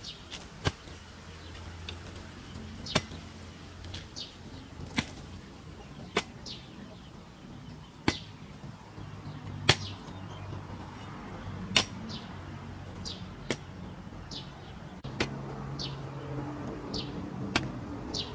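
Long-handled hoe blade chopping into dry, sandy soil, a sharp strike every one to two seconds at a slow, steady working pace.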